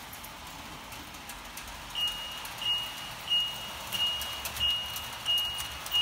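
Toy electric train running on its track with a low steady hum. About two seconds in, a high electronic warning tone starts, beeping about one and a half times a second, as from a toy crossing signal or the locomotive's bell sound. A few sharp clicks come near the end.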